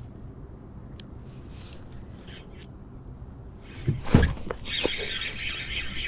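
A largemouth bass strikes a soft-plastic fluke at the surface with a sudden loud splash about four seconds in, followed by a continuous rushing, splashing noise as the hooked fish is fought.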